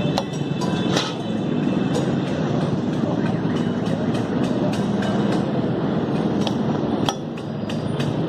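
Steel spatulas clanging and chopping on a large flat iron griddle as katakat is cooked: a fast, irregular run of metallic strikes, with two louder hits about a second in and near the end.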